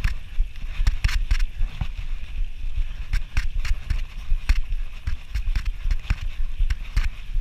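Fat bike being pedalled uphill through soft sand: irregular knocks and rattles from the bike, about one or two a second, over a steady low rumble.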